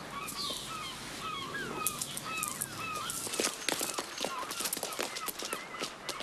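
Birds calling over and over in short, repeated calls, with footsteps clicking on cobblestones that grow busier about halfway through.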